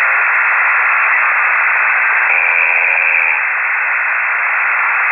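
Static hiss from a ham-radio receiver tuned to a single-sideband signal. About two seconds in, a brief humming pitched sound rises out of the hiss for about a second.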